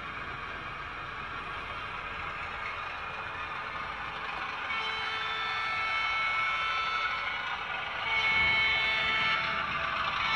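Diesel engine sound from a Hornby Class 31 model locomotive's DCC sound decoder, played through its small onboard speaker while the model runs. It grows louder with a steady whine about halfway through, and louder again near the end, as the engine sound works up under power.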